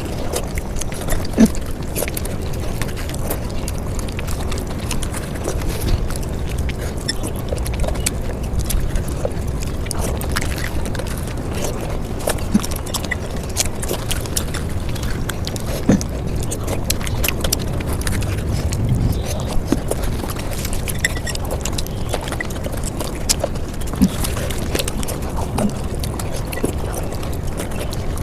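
Mukbang eating sounds played back at five times speed: chewing runs together into a dense stream of short clicks and pops over a low rumble.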